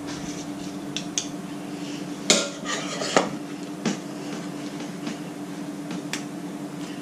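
Kitchen utensils knocking and clinking against a bowl and baking tin while cake mix is put into cupcake cases: a few separate knocks, the loudest about two seconds in, over a steady low hum.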